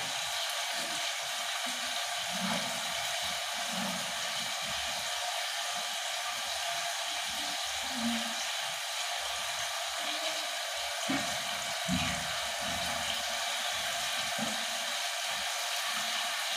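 Pork frying in its juices in an uncovered pot on a gas stove: a steady sizzling hiss.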